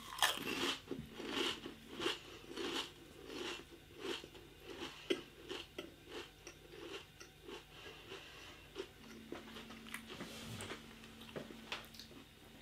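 A person chewing a mouthful of Pringles crisps close to the microphone: a steady run of short, dry crunches, about two a second.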